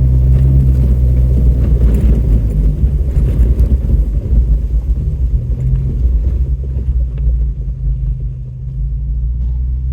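Off-road vehicle's engine running at low speed as it crawls along a rough woodland trail. A steady low drone runs under irregular jostling noise that is busiest over the first several seconds and eases toward the end.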